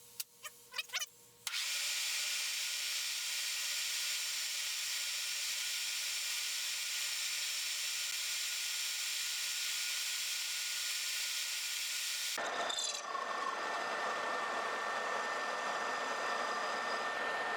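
A few light clicks, then about a second and a half in a power tool starts and runs steadily with a high, hissing noise as it works a piece of metal down to size. About twelve seconds in its sound changes, and it keeps running.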